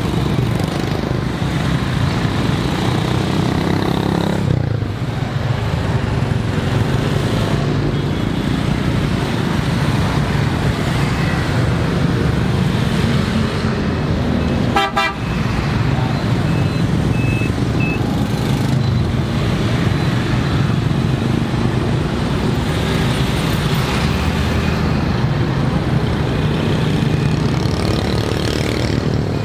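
Dense street traffic of many motor scooters and motorbikes running past, a steady engine hum with a few short horn toots. A city bus passes close by midway.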